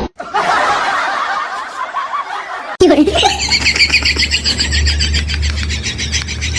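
People laughing, with an abrupt change of sound about three seconds in.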